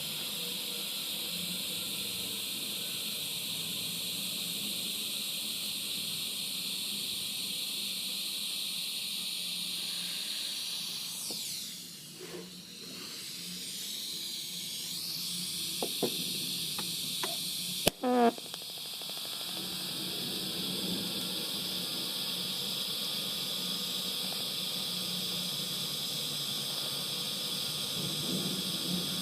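TIG welding arc hissing and buzzing steadily. It stops about a third of the way in; a few clicks and a sharp pop follow, and then the arc starts again and holds steady to the end.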